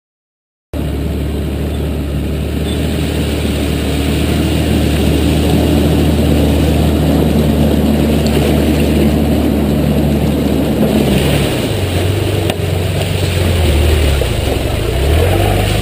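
A four-wheel drive's engine running under load while driving off-road, heard close up from a camera mounted low on the vehicle's side. It starts abruptly a moment in, holds a steady pitch, then rises and falls with throttle changes over the last few seconds.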